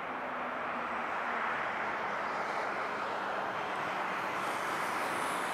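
Wide-body jet airliner's engines at takeoff thrust: a steady rushing jet noise with a faint low hum that slowly falls in pitch, the hiss getting brighter near the end.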